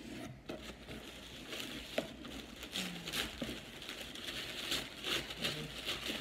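Tissue paper crinkling and rustling in short, irregular crackles as hands unwrap it inside a cardboard box, with one sharper click about two seconds in.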